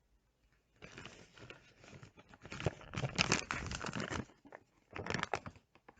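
Nando's chicken meal being handled and pulled apart close to the microphone: crinkling and tearing in irregular bursts, starting about a second in, loudest around the middle, with a short lull before a last burst.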